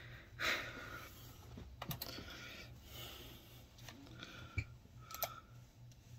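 A few scattered, faint keystrokes and clicks on a computer keyboard, irregularly spaced.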